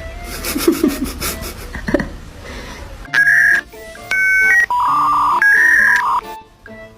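Electronic beeping tones in a short stepped melody of held notes, starting about three seconds in, after a stretch of low hum and noise.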